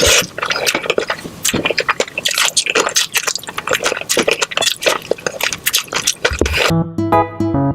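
Close-miked eating of crispy fried chicken: dense crunching and chewing with wet mouth sounds. Near the end it stops and electric piano music starts.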